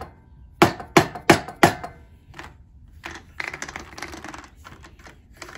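Four quick blows from a Snap-on rubber dead-blow mallet on a cordless impact driver whose broken bit is clamped in a steel vise, about a third of a second apart, struck to knock the jammed bit out of the chuck. One fainter knock follows, then a couple of seconds of rattling and scraping as the driver is shifted against the vise, and a few clicks near the end.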